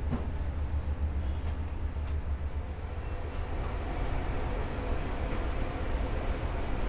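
A steady low rumble of shop machinery, joined about three seconds in by a brighter hiss of deep-fryer oil as fries are lifted from it in a wire strainer.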